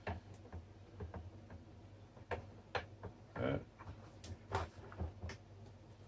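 Faint, irregular clicks and knocks of hard plastic desk-fan parts being handled and twisted as the front grille and blade hub are worked loose.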